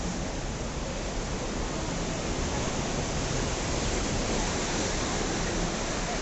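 Sea waves breaking on the rocks: a steady wash of surf noise that swells a little in the second half.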